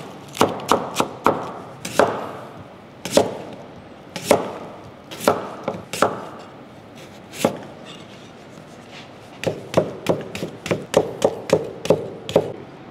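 Large kitchen knife chopping on a wooden cutting board, first through lettuce and then through potatoes being cut into fries. A quick run of chops comes first, then single strokes about a second apart, then another quick run near the end.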